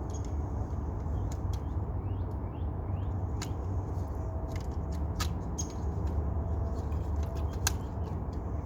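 Scattered sharp clicks and small plastic knocks from a power window switch being handled and fitted, over a steady low rumble.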